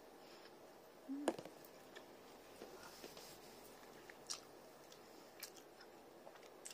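A person quietly chewing a mouthful of pork dumpling, with a few small sharp clicks and mouth sounds spread through.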